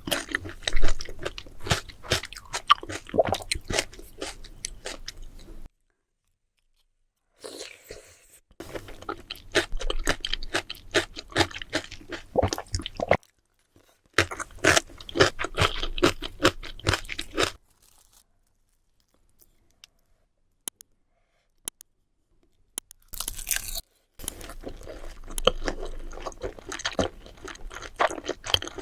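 Close-miked eating sounds: seafood being chewed and crunched, in dense runs of wet clicks and crackles. These break off suddenly several times into dead silence, the longest gap about five seconds.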